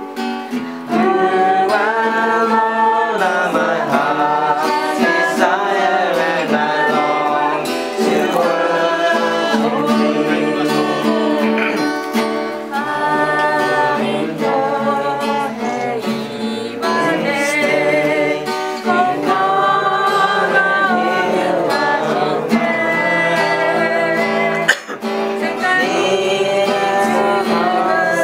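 A small group singing a worship song together to a strummed acoustic guitar.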